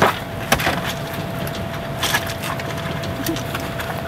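Vehicle door clunking open, then a steady noisy rush from the open door with scattered knocks and cracks, the loudest about two seconds in.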